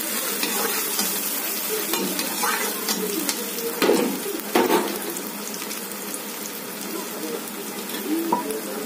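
Sliced onions and green chillies sizzling in hot oil in a metal kadhai, with a metal spoon stirring and knocking against the pan a few times, loudest about four seconds in.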